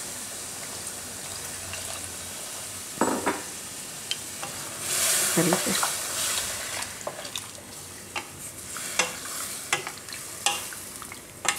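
Spiced okra sizzling in a hot kadai while a slotted nylon spatula stirs, scrapes and knocks against the pan. About five seconds in the hiss grows louder as water goes into the hot masala, and the stirring then goes on through the watery gravy.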